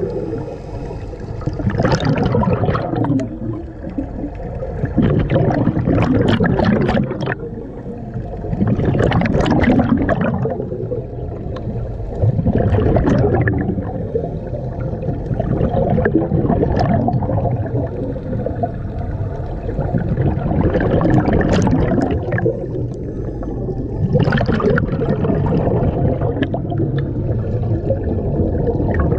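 Underwater sound of a scuba diver breathing through a regulator: a gurgling rush of exhaled bubbles every three to four seconds over a steady low underwater rumble.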